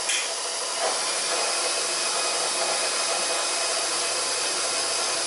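KitchenAid tilt-head stand mixer running at a steady speed, its motor whirring as the beater mixes dry flour and salt in the steel bowl.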